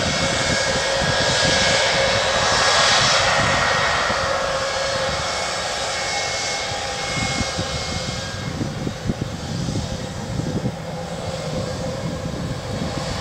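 Boeing 717's rear-mounted Rolls-Royce BR715 turbofan engines running at low taxi power as the jet rolls slowly past: a steady jet hiss with a faint whine, loudest in the first few seconds.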